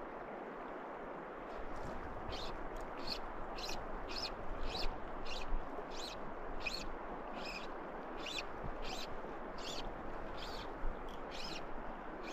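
Steady rush of a flowing river, with a small bird chirping over it about two times a second, starting about two seconds in.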